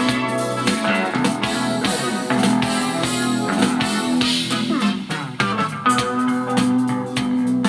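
Instrumental break of a slow pop song, with guitar over bass and drums and no singing.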